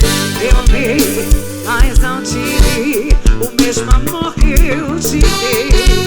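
Live forró band playing an instrumental passage: a steady kick-drum beat under bass and wavering melody lines, with no singing.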